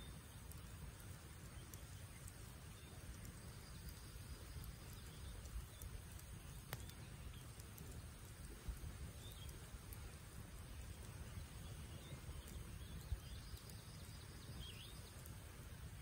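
Wood campfire burning quietly, with a few sharp pops from the burning logs, over a low steady rumble. Faint bird chirps come in a couple of times in the second half.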